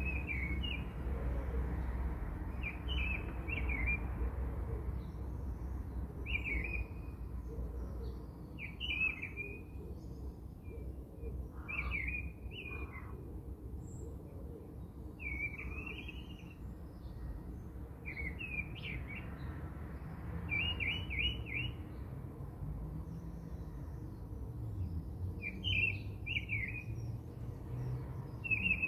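Small birds chirping in short clusters of quick chirps every second or two, over a low steady rumble.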